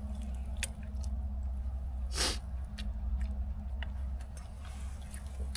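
A person chewing a mouthful of food close to the microphone, with small wet clicks of the mouth. A steady low rumble runs underneath, and a short hiss comes about two seconds in.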